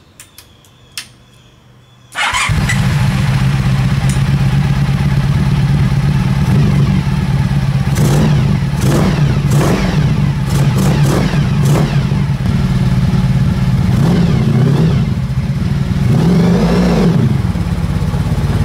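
Honda VF1000 V4 motorcycle engine in a home-built dune buggy, catching about two seconds in after a few clicks, then running steadily with several quick revs as the buggy pulls forward.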